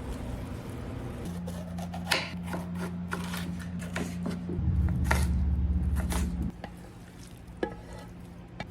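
Clinks and knocks of small objects being handled over a steady low hum, with a louder low rumble for about two seconds from about four and a half seconds in.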